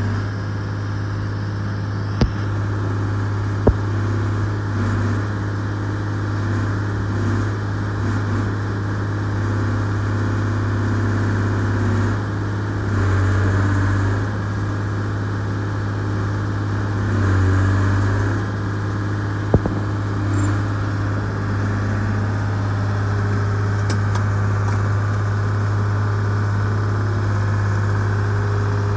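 Excavator's diesel engine running steadily, swelling louder twice as it takes load, with a few sharp knocks of metal.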